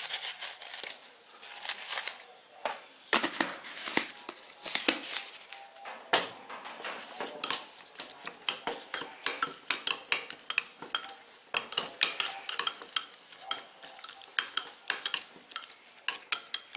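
A metal spoon stirs sugar into a sauce in a small ceramic bowl, clinking and scraping against the bowl in quick, uneven taps.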